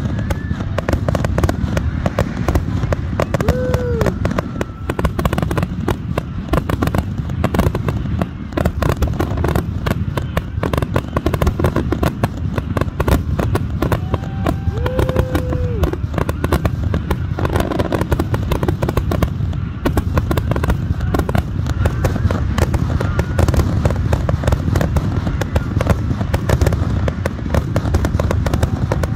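Aerial fireworks going off in a rapid, near-continuous barrage: shell bursts and crackles overlapping with hardly a pause.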